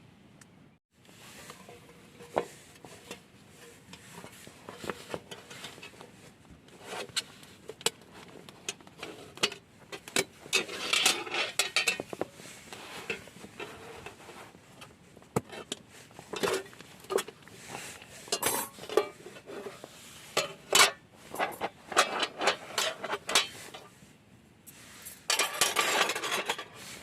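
Camping cookware and utensils clinking, scraping and knocking in irregular handling, as if stirring and working in a pot, with a longer scraping stretch near the end.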